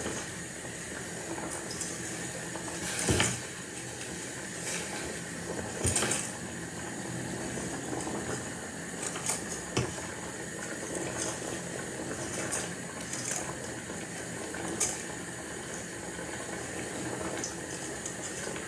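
Water boiling in a cooking pot, a steady bubbling, with a few light knocks, the sharpest about three and six seconds in.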